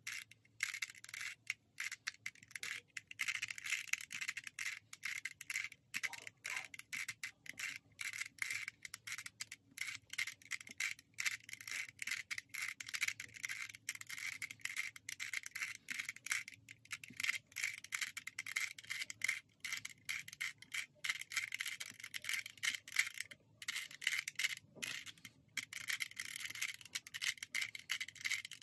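A 3x3 Rubik's Cube's plastic layers being twisted over and over in quick succession: a fast, continuous run of light plastic clicking and rattling, sped up to double speed.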